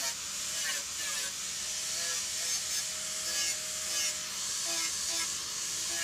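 Handheld angle grinder grinding a steel panel: a steady hiss of the disc on the metal, with the motor's whine wavering in pitch as the load changes.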